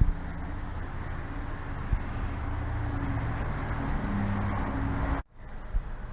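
Outdoor street ambience: a steady rumble of vehicle traffic with faint low engine tones. It cuts off abruptly about five seconds in, followed by fainter background noise.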